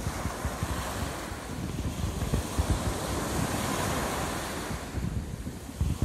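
Small sea waves washing and lapping over a rocky shore, with wind buffeting the microphone. The wash swells through the middle, eases about five seconds in, then gusts hit the microphone again near the end.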